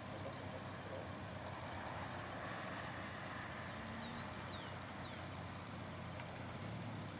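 Distant jet engine noise from a Boeing 777-200F freighter on its takeoff roll, a steady even rush at takeoff thrust.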